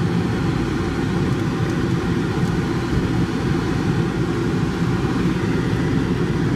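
Steady cabin noise inside a moving 1993 Lincoln Town Car: road and engine noise from the 4.6 V8 mixed with the air-conditioning blower running.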